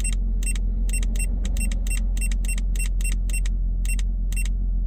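A run of about sixteen short electronic beeps, irregularly spaced at several a second, from an OBD2 digital gauge as its menu buttons are pressed. Under them is the steady low hum of the car's engine idling, heard inside the cabin.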